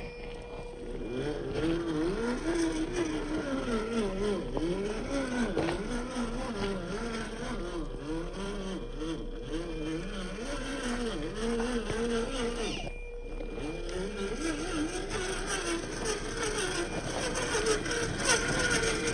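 A 1:10 scale Reely Free Men RC rock crawler's electric motor and gears whining as it crawls over rocks, the pitch rising and falling over and over with the throttle. The whine cuts out briefly about two-thirds of the way through.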